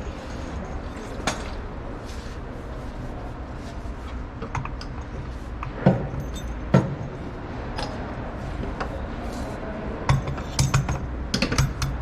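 Metal tools and parts clinking and knocking during hands-on work on a vehicle: scattered sharp clicks, two louder knocks around the middle, and a quick run of clinks near the end, over a steady low hum.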